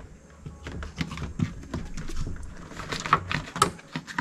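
Plastic door vapor barrier being handled and pressed into place on a door's inner panel: scattered light taps and clicks with some crinkling.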